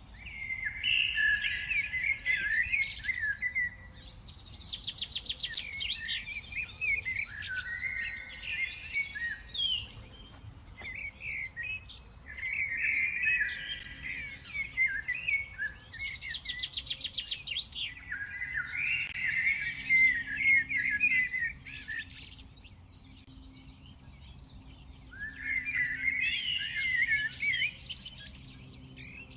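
Songbirds singing in repeated bouts of chirping, warbling phrases with fast trills, pausing briefly between bouts.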